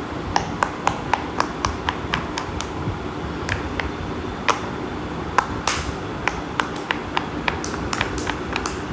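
Silicone pop-it fidget toy having its bubbles popped one after another by fingers: a string of quick, sharp pops, a few each second, in an uneven rhythm.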